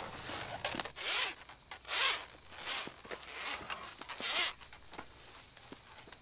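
Short rasping strokes of a lasso rope being pulled through the hands, three of them louder than the rest, over a steady high thin whine.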